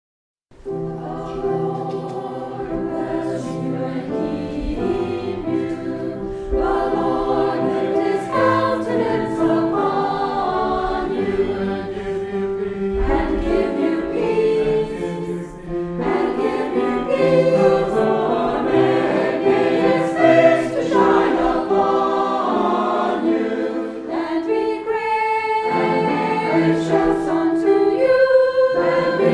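Choir singing a sacred piece in harmony, starting about half a second in.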